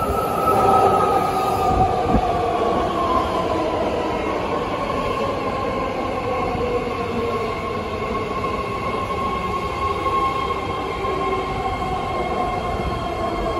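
BART Fleet of the Future electric train pulling in alongside the platform, with a steady rolling rumble and a whine whose several tones fall slowly in pitch as the train slows.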